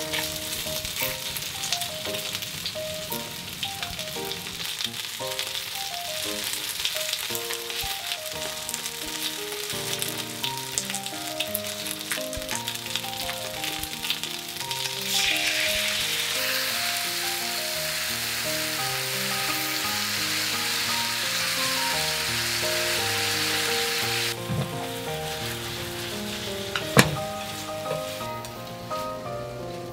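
Chicken thigh and lotus root pieces sizzling in oil in a frying pan. About halfway through, the sizzle suddenly grows louder and hissier as the sweet-and-sour sauce hits the hot pan, then drops back about nine seconds later. One sharp knock comes a few seconds before the end, over soft background music.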